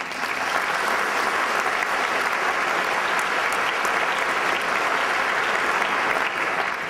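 Audience applauding steadily, the clapping dying down near the end.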